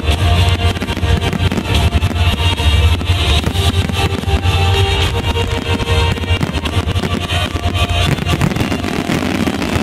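Loud music from the display's sound system, with the bangs and crackle of fireworks bursting over it.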